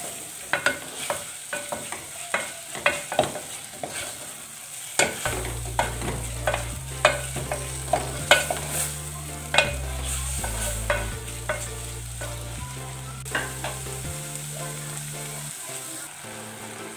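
Wooden spatula stirring button mushrooms in coconut cream in an aluminium pot, scraping and knocking against the pot in frequent sharp clicks. About five seconds in, a low hum that steps in pitch comes in underneath.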